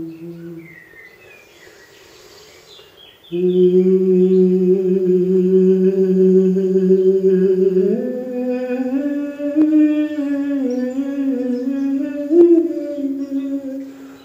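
A single voice chanting a mantra in long held tones. A sustained note fades out, and after a short pause a low note is held for several seconds, then steps up about halfway through to a higher pitch that wavers slightly until near the end.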